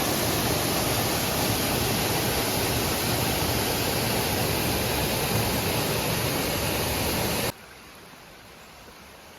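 Waterfall rushing steadily, swollen by recent rain, cutting off abruptly about seven and a half seconds in to a much fainter steady hiss.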